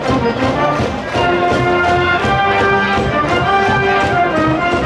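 A brass band, with trumpets and trombones, plays a melody of held notes over a steady drum beat, in the manner of a school cheering band.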